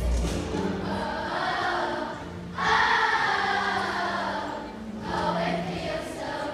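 Children's choir singing a pop song together, with a loud sung phrase coming in sharply about two and a half seconds in and another starting near five seconds.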